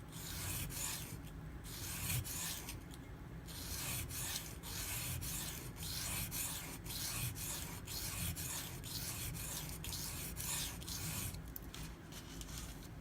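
Knife blade of M390 steel stroked back and forth on a coarse waterstone under light pressure: a steady run of gritty scraping strokes with a few brief pauses. The edge is being ground down to remove chips.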